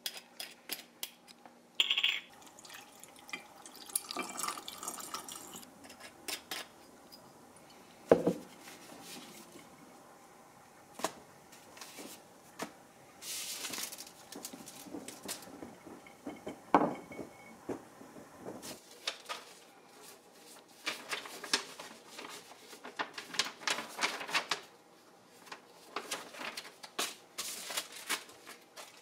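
Small household handling sounds: scattered clicks, knocks and light clinks, with a few short rustling or swishing noises in between.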